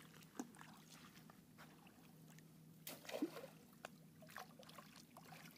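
Faint water sloshing and splashing with small knocks, loudest in a splash about three seconds in, over a faint steady low hum.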